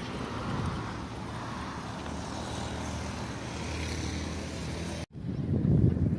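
Steady engine noise with a low hum that cuts off abruptly about five seconds in, followed by louder wind buffeting on the microphone.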